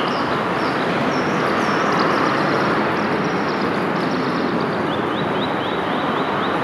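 Steady rush of a flowing forest river, with birds calling over it: a run of short falling chirps, then from about five seconds in a quick series of short rising notes, two or three a second.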